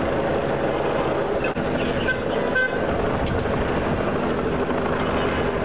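Steady city street noise with two short car-horn toots about two seconds in, half a second apart.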